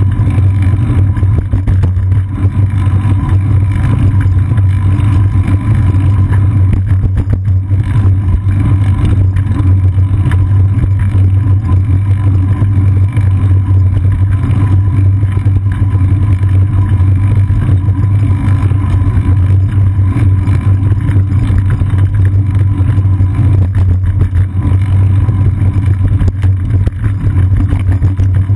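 Deep, steady rumble of wind buffeting and ride vibration picked up by a GoPro Hero 2 mounted on a moving bicycle's seat post.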